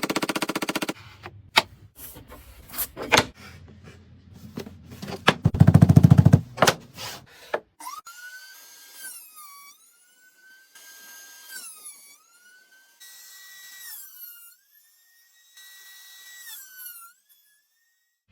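Woodworking power tool sounds: a fast buzzing burst, knocks and clicks, and a louder buzzing run about six seconds in. After that, a high tone with overtones slides up and down between held pitches for most of the second half.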